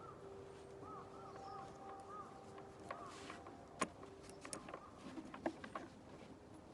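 Faint small-bird chirps repeating in short arched notes, with a few sharp clicks about four and five seconds in.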